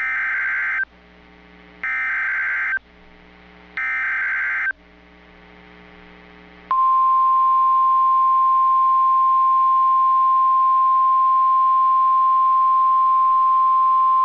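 NOAA Weather Radio alert signal: three short bursts of warbling SAME digital header data about two seconds apart, then, about seven seconds in, the steady single-pitch 1050 Hz warning alarm tone, the signal that a warning (here a tornado warning) follows.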